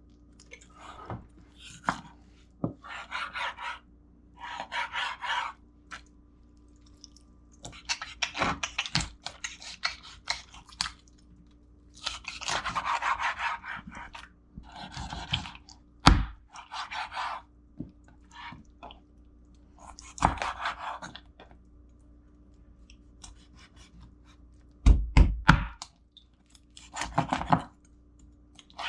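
Knife cutting up a raw whole chicken on a cutting board: repeated bursts of slicing and scraping, broken by a few heavy chops of the blade against the board, the loudest about halfway and near the end.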